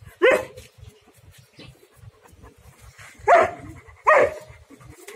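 Burmese Inn dogs barking during rough play: three short barks, one near the start and two close together past the middle.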